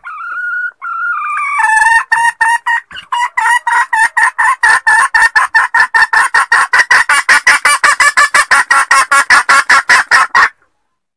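Female junglefowl (jungle hen) calling: a drawn-out opening note, then a long run of rapid clucks that quickens to about five a second and stops abruptly near the end. This is the hen's call used as a lure to draw out a wild junglefowl cock.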